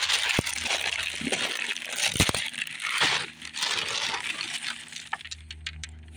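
Plastic cereal bag crinkling and dry cinnamon cereal squares rattling as a gloved hand digs in and scoops out a handful, with a sharp knock about two seconds in.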